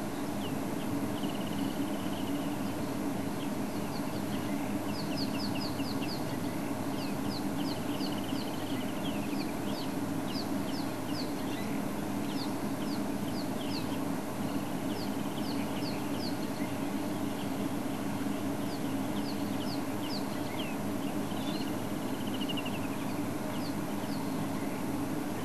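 Wild birds calling in the bush: runs of short, quick high notes and brief trills, repeated every second or two over a steady low hum.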